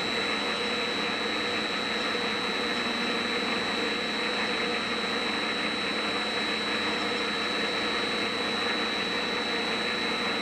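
Metal lathe running steadily with its chuck spinning, a constant high whine over an even machine drone.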